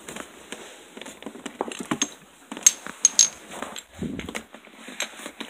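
Handling noise from the recording camera: irregular clicks, taps and rustles close to the microphone, with a few sharp knocks in the middle and a low thump near the end.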